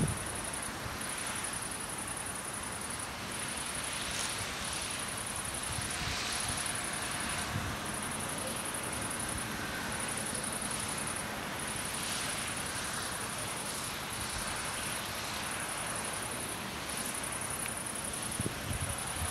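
Outdoor evening ambience: a very high-pitched buzz repeating in bursts of about a second with short gaps, over a steady faint rush of distant noise.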